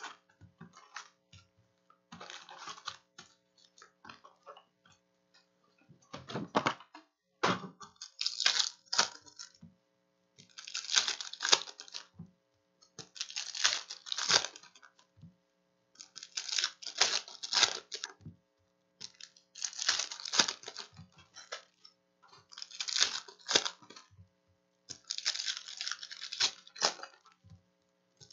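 Foil wrappers of Optic retail trading-card packs crinkling and tearing as packs are ripped open one after another. Light rustling and two sharp knocks come first, then from about eight seconds in a second-long burst of crinkling about every three seconds.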